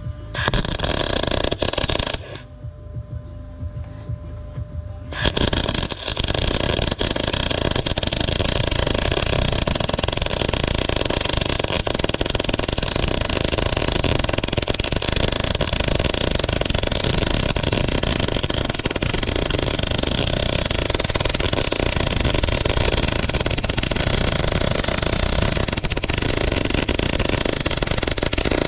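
Mini excavator's small diesel engine starting: a two-second burst about half a second in, a short drop, then it catches about five seconds in and runs steadily.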